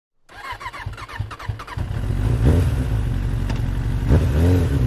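Motorcycle engine running and being revved, its pitch rising and falling twice, about halfway through and again near the end. It is preceded by a quick run of short, high chirps in the first second and a half.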